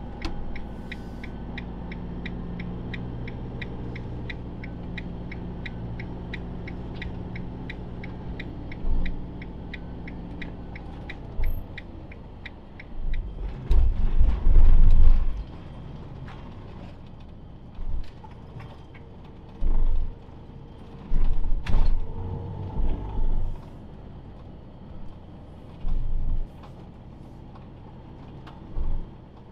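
Cab of a Hobby motorhome on the move: the engine runs steadily while the indicator ticks evenly for the first dozen seconds or so, then the body gives a string of loud thumps, knocks and creaks as it rides over a bumpy lane, the heaviest jolts about fourteen to fifteen seconds in.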